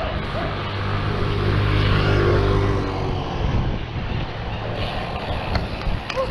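A motor vehicle drives past, its engine hum swelling to its loudest about two seconds in and fading by about three and a half seconds, over steady road and wind rumble.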